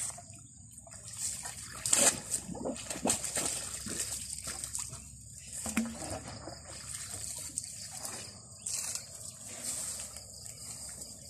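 Water trickling and sloshing out of a PVC tube eel trap as it is lifted from the water to drain, with irregular splashes and scattered knocks and rustles from the surrounding twigs.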